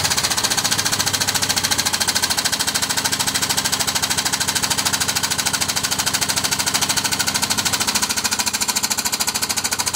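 A power tool's rapid, steady mechanical hammering, about a dozen blows a second, loud and unbroken.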